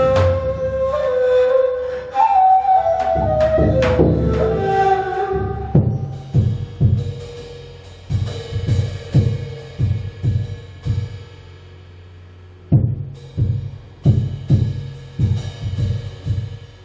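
Live ney duo music. An end-blown ney flute plays a slow melody of held notes stepping downward, over scattered hand-percussion hits. About six seconds in, the flute drops to a faint held tone and a large rope-tensioned bass drum takes over, struck with a soft mallet in steady low strokes about two a second, with a short pause before the strokes resume.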